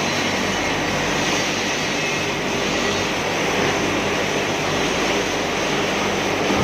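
Automatic MIG welding machine running: the steady hiss of the welding arc over a low machine hum, even throughout.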